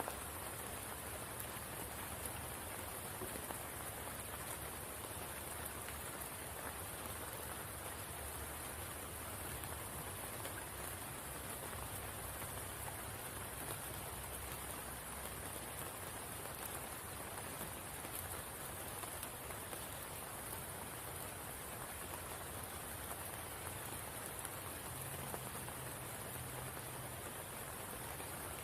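Steady rain falling, an even hiss that holds without change, with a constant high-pitched band of sound above it.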